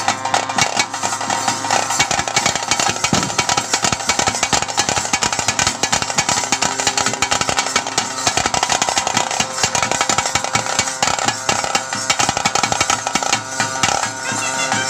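Traditional ritual music accompanying a bhuta kola dance: fast, dense drumming under a steady, held wind-instrument melody, played continuously.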